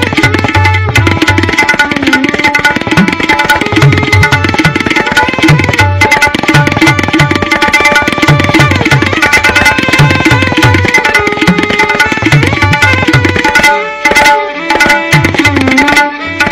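Tabla solo: rapid, dense strokes on the dayan with deep bass strokes on the bayan, over a violin holding a repeating lehra melody. The strokes thin out briefly about fourteen seconds in, with a gliding bass note from the bayan, then pick up again.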